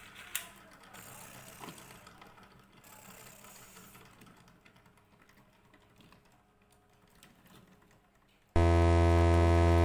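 Beyblade Burst spinning top whirring with a faint fine rattle against its surface as it winds down toward stopping, with a sharp click about half a second in. Near the end a loud steady tone cuts in abruptly.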